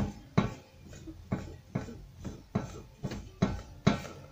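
A towel is rubbed back and forth over the steel wires and frame of a multi-wire soap cutter. Each stroke makes a sharp scrape or knock, about two strokes a second in an even rhythm.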